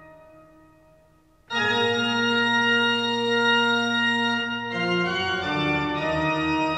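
Organ music in sustained chords: one chord fades away, then a new chord comes in loudly about a second and a half in, and the harmony shifts twice near the end.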